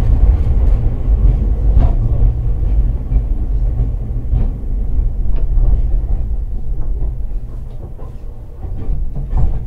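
Hakodate City Transportation Bureau 8000-series streetcar running, heard from inside the car: a steady low rumble of wheels on rail, with occasional sharp clacks, likely over rail joints.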